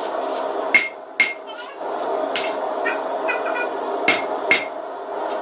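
Hand hammer blows on a 1-inch square steel bar on the anvil, forging a fishtail taper: two pairs of ringing strikes, one about a second in and one near the end, with a lighter blow between, over a steady hum.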